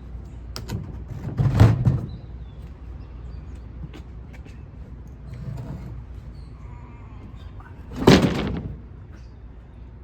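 Wooden shipping crate being opened, with two loud creaking, scraping pulls of its boards, one about a second and a half in and one near the end, and small knocks and clicks between them.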